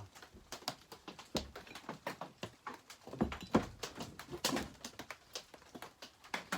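Irregular clicks and knocks from handling and turning over a McCulloch 850 chainsaw's body on a workbench during reassembly, with the loudest knocks about three and a half seconds in.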